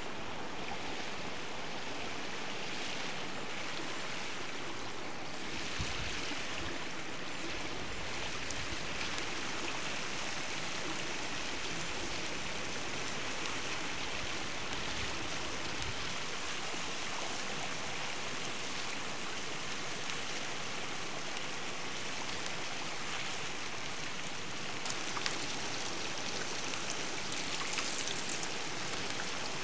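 Bread dough sizzling as it fries in hot oil in a cast-iron pan over a wood fire. The hiss builds up after the first several seconds, over a steady rushing background. Near the end a metal spatula clicks and scrapes against the pan as a browned piece is lifted.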